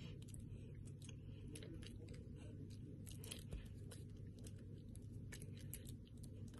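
Low, steady room hum with many faint, scattered clicks and rustles from hand and body movement while signing.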